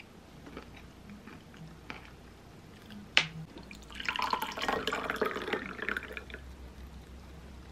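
Tea poured from a glass teapot into a glass, a trickling stream for about two and a half seconds. A single sharp click comes just before the pour.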